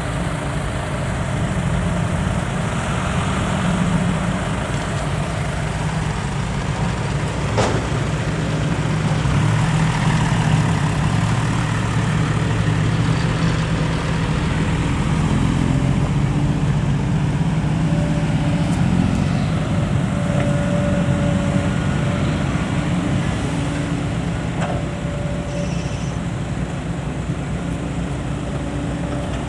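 Diesel engine of an Isuzu dump truck running steadily at a low, even hum, with one brief sharp knock about eight seconds in.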